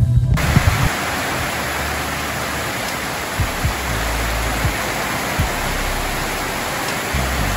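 Heavy tropical rain pouring steadily onto foliage and lawn: an even, unbroken hiss, with a few faint low thumps of drops. It is preceded by a brief low sloshing of the camera underwater in the first half-second.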